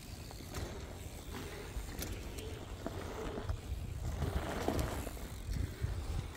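Absima Sherpa RC crawler pickup crawling over loose gravel, its small electric motor and gears whirring, with scattered clicks and crunches of stones under the tyres.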